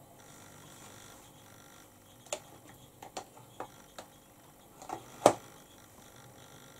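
Makeup tools being handled: a handful of light clicks and taps spread over a few seconds, with one sharper tap, louder than the rest, about five seconds in.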